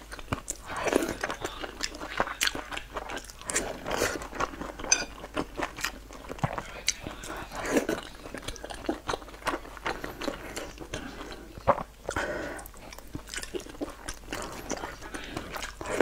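Close-miked chewing and biting of boiled dumplings, with irregular wet mouth sounds and small clicks throughout.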